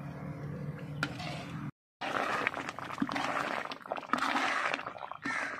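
Thick sohan halwa mixture bubbling in a large iron wok as it cooks down to thicken, with a spoon stirring and scraping through it. The sound drops out briefly a little under two seconds in.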